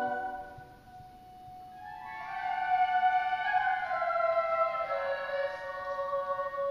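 Youth choir singing in a reverberant church. A held chord is released just after the start and rings away. About two seconds in, high voices enter with sustained notes that step downward in pitch.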